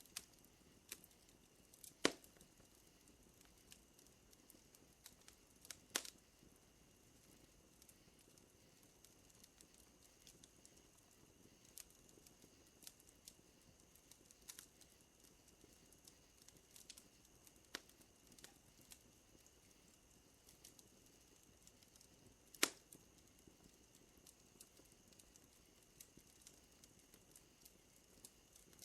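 Wood fire crackling quietly: scattered small pops and ticks, with three sharper snaps, about two seconds in, about six seconds in, and about two-thirds of the way through.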